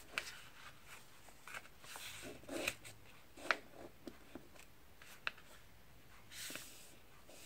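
Faint, scattered rustles and light taps of a sheet of printing paper being folded and pressed flat by hand, with a slightly longer rustle about six and a half seconds in.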